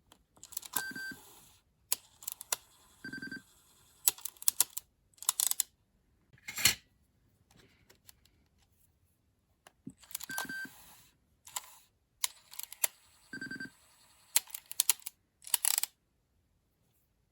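Sony WM-EX622 cassette Walkman being handled and operated: sharp mechanical clicks and short clattering runs of its buttons and small parts, with brief high electronic beeps. The same pattern of clicks and beeps comes round twice.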